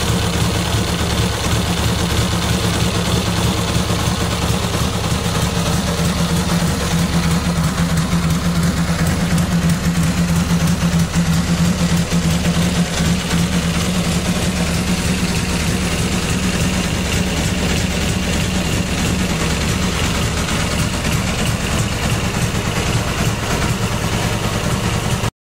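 Restored 1927 Husqvarna model 180 550 cc V-twin motorcycle engine running steadily at idle. The sound cuts off abruptly just before the end.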